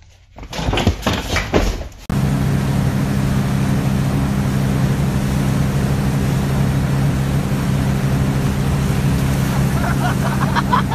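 A few loud short bursts, then, after a sudden change about two seconds in, a motorboat's engine running steadily with an even low hum under the constant rush of water behind the boat. Voices come in near the end.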